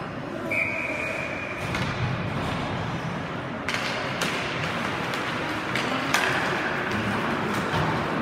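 Ice hockey in an arena: a single held whistle note for about a second near the start, then sharp knocks and thuds of sticks and puck as the faceoff is taken and play goes on, over the rink's steady hubbub.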